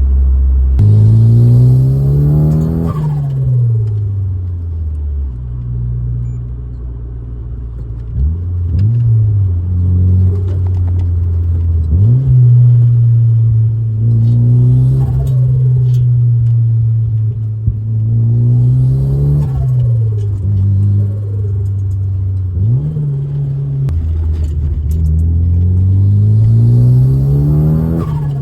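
Mitsubishi Lancer GSR's turbocharged 1.8-litre 4G93T four-cylinder driven hard, its engine note climbing through the revs and dropping between gears about four times, with bursts of turbo hiss and flutter over the pulls.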